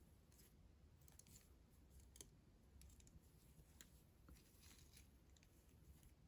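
Near silence with faint scattered clicks and light rustles, like hands handling a plastic toy and its packaging; one slightly sharper click about two seconds in.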